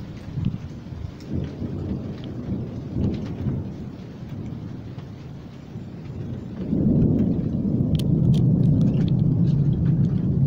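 Thunder rumbling over falling rain: a few short rumbles in the first few seconds, then a loud, long rumble of thunder begins about two-thirds of the way in and carries on.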